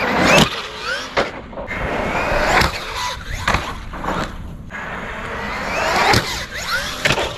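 Traxxas Maxx V2 RC monster truck on a 6S battery driving over rough concrete: its brushless motor whines up and down with the throttle over the rasp of the tyres. A few sharp knocks come as it bounces.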